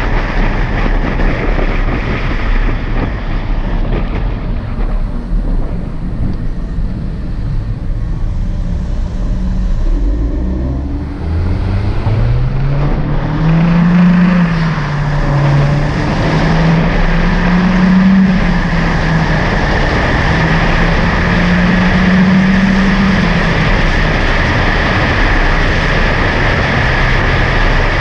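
Honda Civic Hatchback Sport's turbocharged four-cylinder engine and exhaust while driving, under heavy wind and road rush. About eleven seconds in, the engine note rises as the car accelerates, then holds and wavers with the throttle.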